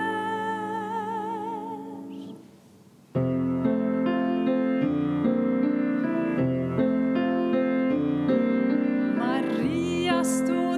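A woman singing a held note with vibrato over grand piano accompaniment. The note fades out about two seconds in, the piano comes back in with chords a second later, and her voice joins it again near the end.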